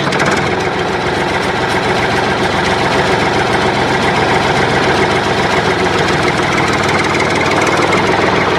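Tractor engine running steadily at idle, an even rapid pulsing.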